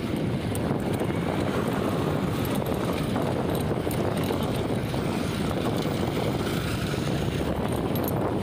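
Motorcycle riding along a dirt track: steady engine and road noise, with a few faint small knocks from the rough surface.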